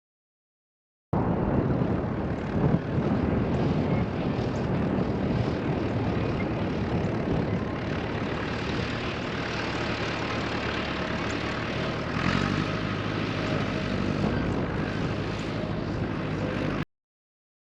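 A motor engine running steadily under load, its pitch shifting about eleven seconds in. The sound starts suddenly about a second in and cuts off suddenly about a second before the end.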